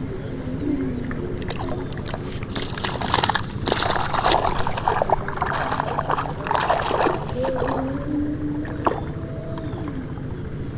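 Water splashing and sloshing in irregular bursts as caught tilapia are handled and sorted, over a steady low hum.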